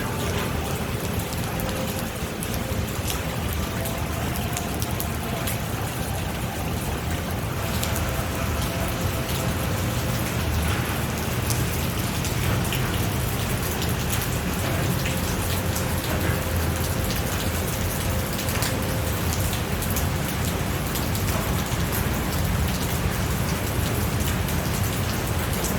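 Steady rain falling, with many individual drops ticking on a surface.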